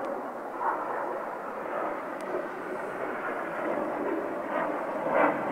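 Distant jet noise from a formation of BAE Hawk T1 jets passing overhead: a steady rushing sound that swells slightly near the end.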